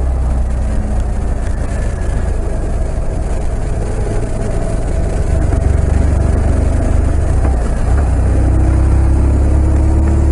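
Riding a BMW R 1200 RT motorcycle: a steady low rumble of wind on the microphone, with the bike's boxer twin engine running underneath.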